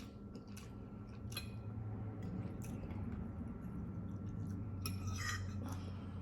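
Faint eating noises: a few light clicks and clinks, the clearest about a second in and about five seconds in, over a low steady hum.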